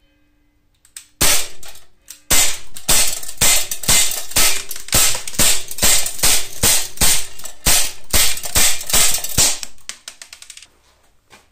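Umarex Glock 19 CO2-powered 4.5 mm steel BB pistol firing: a single shot about a second in, then a rapid string of about twenty shots at roughly three a second, stopping shortly before the end.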